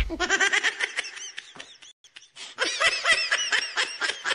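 Rapid high-pitched laughter in two runs with a short pause between, opening on the tail of a loud thump.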